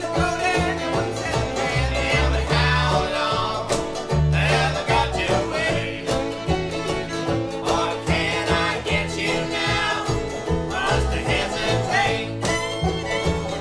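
Bluegrass music with banjo and guitar picking over a steady bass, without singing.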